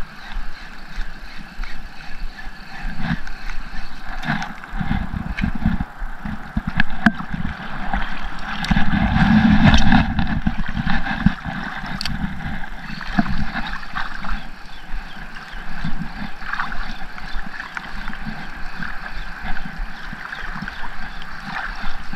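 Wind buffeting an action camera's microphone over seawater sloshing around a wading angler, with the strongest gust about nine to ten seconds in.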